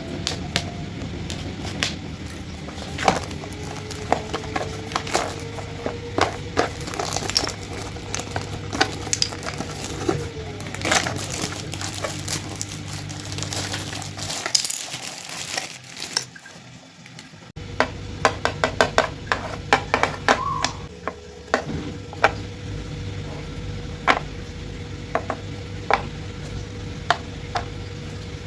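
Wooden pieces of a magnetic toy game being handled: irregular clicks and clacks of wood tapping together, over a steady low hum. The handling briefly goes quiet about halfway through, then comes back with a quick run of clicks.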